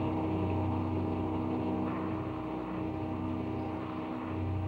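Military convoy vehicle's engine running steadily on the move, a constant drone with road noise.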